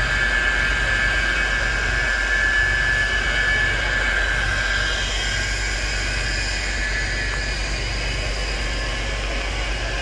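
A fire tanker's engine runs with a steady drone. A thin high whine in it fades out about halfway through.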